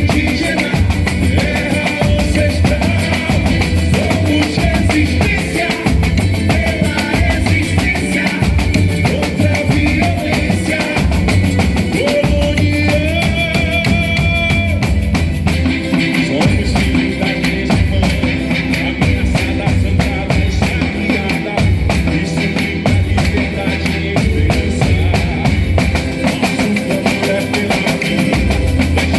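Boi-bumbá toada music: a large percussion section drumming a dense, steady beat under guitar and keyboard, loud and continuous.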